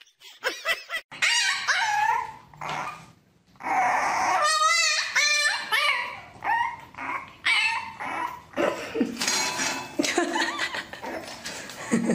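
Puppies whining and yipping: a string of short, high calls that bend up and down in pitch, with a brief pause about three seconds in.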